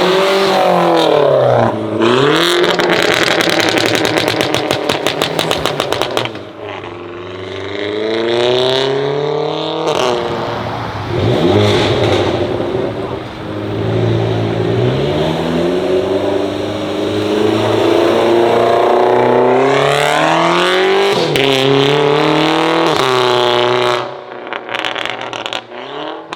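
Audi A3 Sportback with a custom stainless-steel exhaust accelerating hard several times. The loud engine note climbs in pitch and drops back again with each run.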